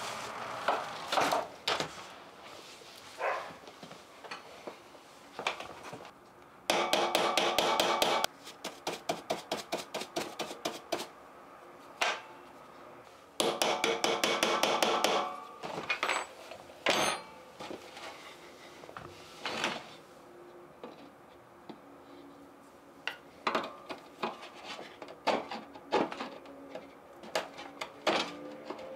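Small metal hand tools clinking and tapping, with scattered knocks and scrapes and two stretches of fast rattling clatter, one about 7 seconds in and one about 13 seconds in.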